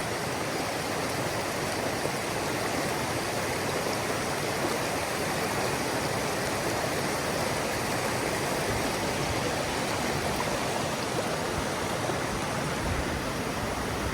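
Mountain stream water rushing steadily over rocks, with a low rumble near the end.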